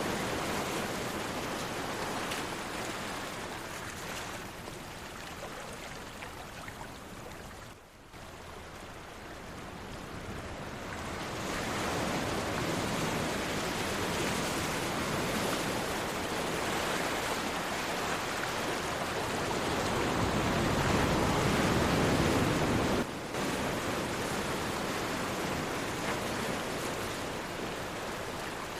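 Sea surf: a continuous wash of waves that ebbs to a low point about eight seconds in, swells again to its loudest just before the end, then drops off suddenly.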